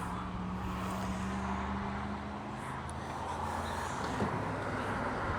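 A motor vehicle's engine running steadily, a low pitched hum that fades about four seconds in, over open-air background noise.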